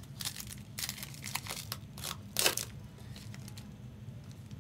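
Plastic or foil trading-card pack wrapper crinkling and tearing in a quick run of short rustles, the loudest about two and a half seconds in, then going quiet.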